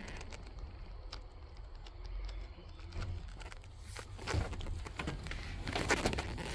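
Scattered clicks and rustling of someone moving about inside a truck cab and climbing out onto the entry step, over a steady low rumble. The rustling and knocks grow louder from about four seconds in.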